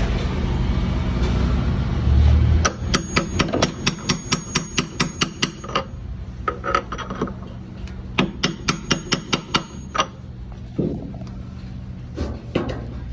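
Rapid metal-on-metal taps, about six a second in two runs, as a new bearing is driven onto a washing machine's mechanism shaft with a tool. The taps follow a low rumble in the first couple of seconds and are followed by a few scattered knocks.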